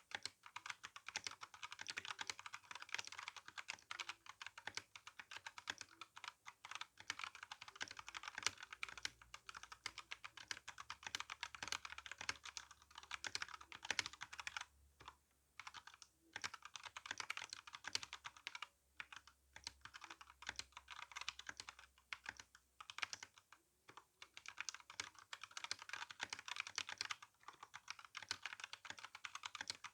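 Typing on an RK61 60% mechanical keyboard with brown tactile switches and GSA keycaps: a dense, quick run of key clacks, broken by a few short pauses around the middle.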